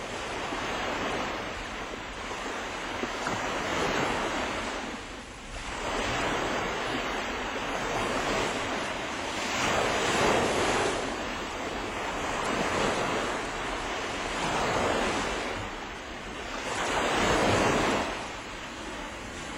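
Sea waves breaking and washing on the shore, the surf swelling and falling every few seconds, with wind on the microphone.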